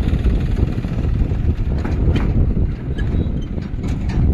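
John Deere 5050D tractor's three-cylinder diesel engine running as the tractor and its emptied tipper trailer drive past close by, with wind rumbling on the microphone. A few sharp rattles sound over the engine.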